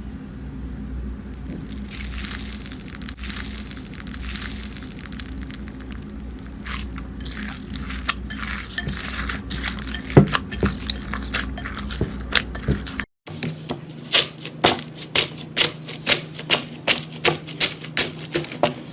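Slime being squeezed and worked by hand, with a crackling texture over a low hum. About two-thirds of the way in, after a cut, comes a run of sharp crisp pops and clicks, roughly two or three a second.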